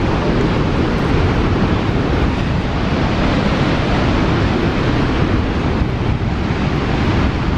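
Steady rushing roar of a large waterfall, Niagara's Horseshoe Falls, with wind on the microphone.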